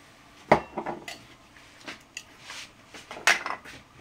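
A metal spoon clinking against dishes while spices are measured out: a sharp clink with a short ring about half a second in, a few lighter knocks after it, and another cluster of clinks near the end.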